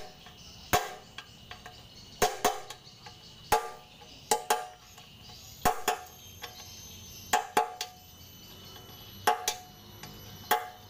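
Hammer blows on a steel punch held against the drain-plug nut of a sheet-steel engine oil pan: about a dozen sharp metallic strikes, irregular and roughly a second apart, some in quick pairs, each followed by a brief ringing of the pan.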